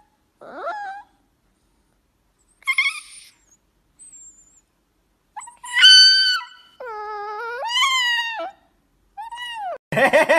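A puppy howling in a series of about five short, high, wavering cries with silences between, the loudest about six seconds in and followed by a longer cry that dips and rises again.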